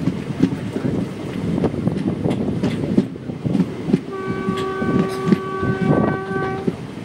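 Passenger coach wheels clattering over rail joints in an uneven run of knocks. About four seconds in, a train horn sounds one steady note for about two and a half seconds.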